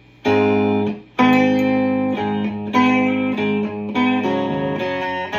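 Open-chambered Telecaster electric guitar with a mahogany and maple build, played as a chord progression in the key of A. A first chord is struck and cut short, then a string of chords rings out, changing about every half second to a second.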